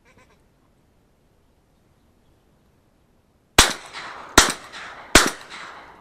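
Three shotgun shots fired at flying ducks, about 0.8 s apart in the second half, each leaving a trailing echo.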